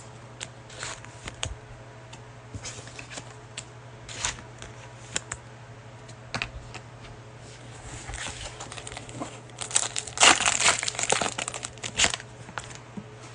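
Cellophane wrapper of a Mosaic basketball cello pack crinkling and tearing as the pack is opened, loudest from about eight to twelve seconds in. Before that there are light clicks and rustles of trading cards being handled.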